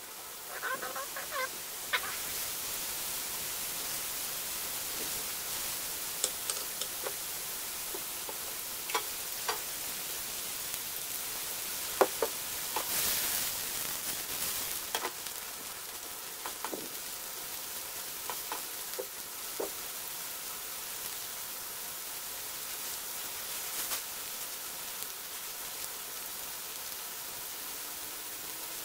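Sliced mushrooms sizzling steadily in oil in a nonstick frying pan, with scattered clicks and taps from the pan and utensils. The sizzle swells louder about halfway through as the pan is tossed.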